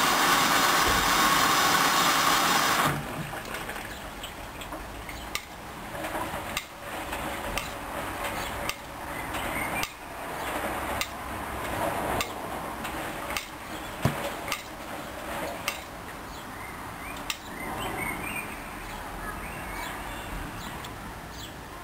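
Hoover Dyn10124Dp washing machine starting its first rinse: a loud, even rush that stops abruptly after about three seconds, then the drum turning with irregular clicks and knocks of the jackets' hard parts against the drum.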